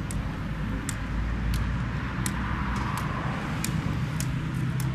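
White cane tip tapping on concrete paving stones in an even walking rhythm, about seven sharp taps at roughly one and a half a second, over a steady low rumble.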